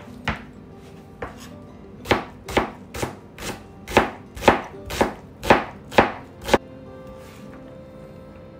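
Chef's knife chopping a red onion on a plastic cutting board: sharp knife strikes on the board, settling into an even beat of about two a second, stopping about six and a half seconds in.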